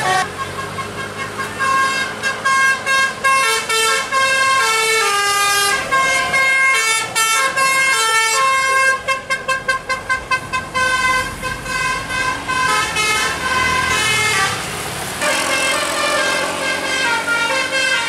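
Tour buses' telolet basuri musical horns playing tunes in quick stepped notes, over diesel engine noise from the passing buses. Around the middle there is a fast run of rapidly repeated notes.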